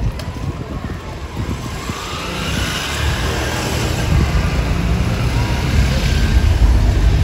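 A motor vehicle drawing near and passing close, growing steadily louder from about two seconds in.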